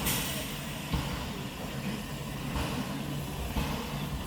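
Steam locomotive standing at a platform: a steady low rumble and hiss, with a few short knocks.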